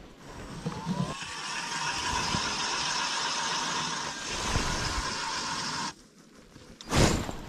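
Power ice auger drilling a hole through lake ice: the motor spins up with a short rising whine, runs steadily for about five seconds with a gritty cutting noise, then cuts off suddenly. A loud thump follows about a second later.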